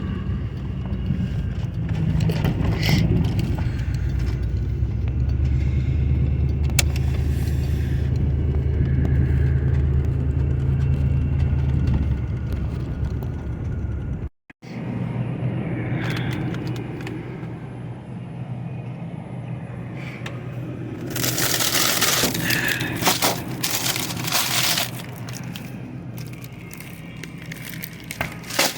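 Car engine running steadily with a low hum. After a sudden cut about halfway through, quieter engine and road noise, with a few seconds of loud rushing noise about three quarters of the way in.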